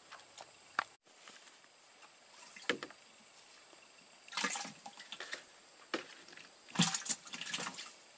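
Steady high-pitched drone of insects, with a few short rustling and light water-splashing noises from handling a fishing line and float at the water's edge, the busiest clusters about halfway through and near the end.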